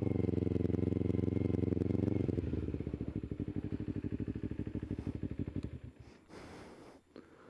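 Motorcycle engine running steadily at low speed, then dropping to a slow, pulsing idle about two and a half seconds in as the bike pulls up. The engine sound stops about six seconds in.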